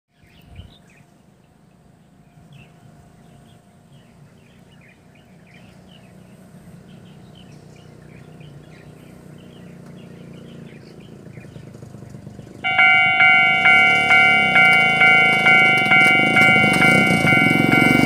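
Small birds chirping over a faint low rumble. About two-thirds in, the level crossing's warning bell starts ringing loudly, about two strokes a second, signalling that a train is approaching.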